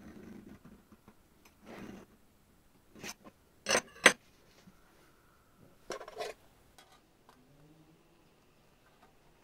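A scribing tool scratching short strokes along a brass sheet against a steel square, then metal hand tools set down on the table with two sharp clacks about four seconds in and a shorter clatter near six seconds.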